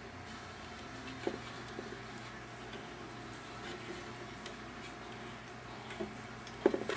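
Faint clicks and handling noise of small front-panel connector plugs being pressed onto motherboard header pins, over a steady low hum, with a slightly louder pair of clicks near the end.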